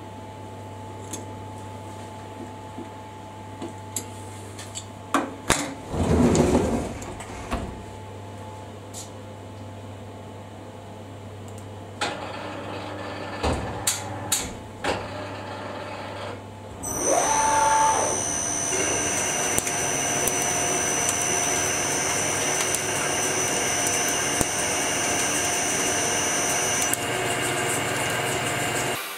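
Tormach CNC lathe being loaded and started: a few knocks and a sliding rush as the part is set and the enclosure door is shut, then, about two-thirds of the way through, a short rising whine as the spindle spins up, followed by a steady machine whine and coolant hiss as it machines the aluminium part.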